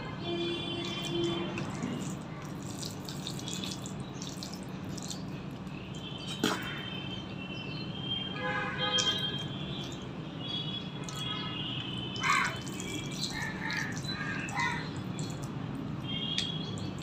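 Eating by hand: soft, wet rice and papaya curry squelched together with the fingers on a steel plate and chewed, with scattered clicks and mouth smacks. A few short high chirps sound now and then over a steady low hum.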